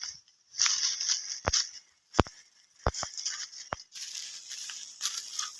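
Stop-start bursts of rustling noise with several sharp clicks.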